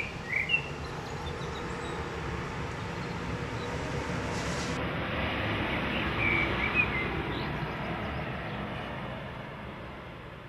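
A train passing, its rumble swelling to a peak a little past the middle and then fading away, with a few bird chirps near the start and again near the peak.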